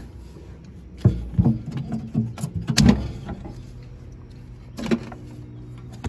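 A replacement car battery and its cable clamp being handled and set into a metal battery box: several knocks and clunks, the loudest near the middle, over a steady low hum.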